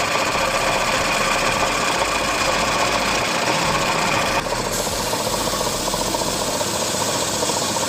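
Jewellery-workshop machinery running steadily with a dense, even noise. About halfway through, the higher part of the noise drops away abruptly.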